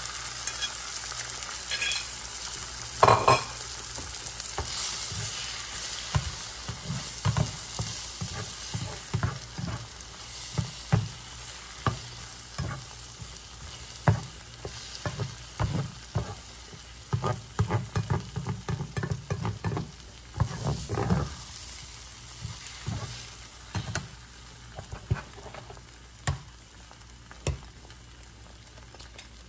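Eggs sizzling in a nonstick frying pan while a spatula stirs and scrapes them, knocking against the pan again and again. The sizzle slowly fades and the stirring strokes thin out near the end.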